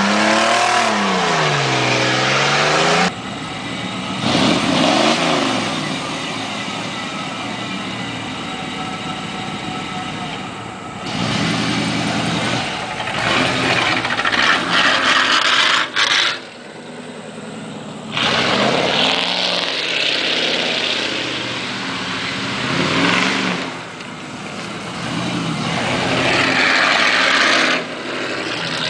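1991 Chevy 1500 pickup's 350 V8 revving hard in repeated rising and falling surges while spinning donuts in grass, with long loud stretches of wide-open throttle and wheelspin. The opening few seconds are an engine revving, heard from inside a cab.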